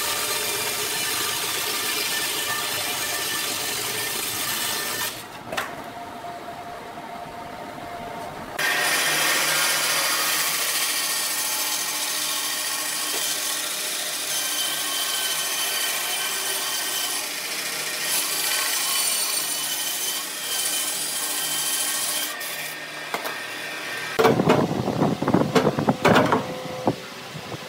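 Band saw ripping lengthwise through a bark-covered log, the blade cutting steadily with a quieter stretch about five seconds in. Near the end come several sharp knocks as wooden blocks are set down on bar clamps on a wooden workbench.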